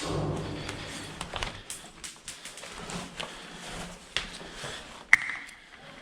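Scattered faint clicks and knocks, with one sharp crack about five seconds in that rings briefly.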